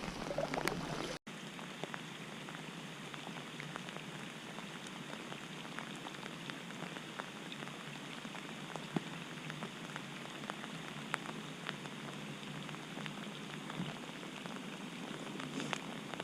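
Heavy rain falling: a steady hiss dotted with the ticks of individual drops, briefly cut off about a second in.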